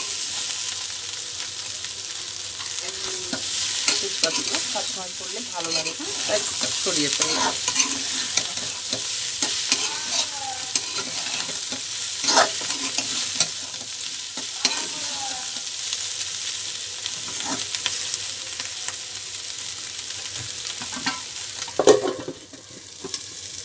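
Metal spatula stirring and scraping cauliflower and papaya curry around a sizzling steel karai. Near the end a metal lid clanks down onto the pan and the sizzle goes muffled.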